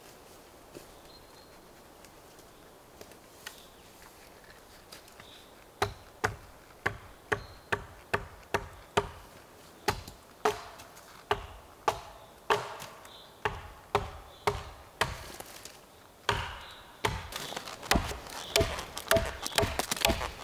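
Repeated sharp knocks, about two a second, starting about six seconds in after a few faint ticks and growing busier and louder near the end.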